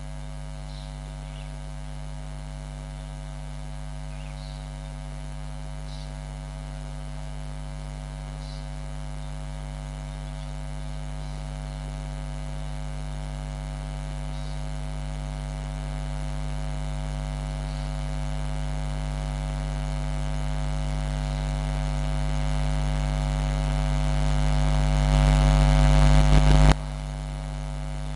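Steady electrical hum with a buzzy set of overtones. It grows slowly louder, steps up near the end, then drops back abruptly about 27 seconds in.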